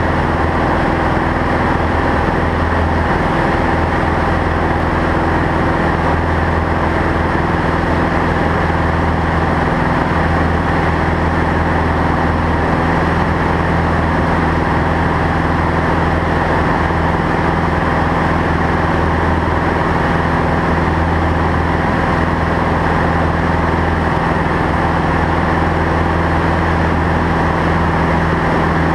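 RV-6 light aircraft's piston engine and propeller droning steadily, heard inside the cockpit at constant power.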